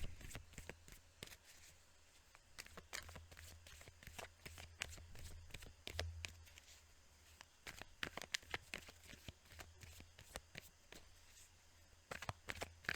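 A deck of tarot cards being shuffled and handled: many irregular soft flicks and taps, over a faint low steady hum.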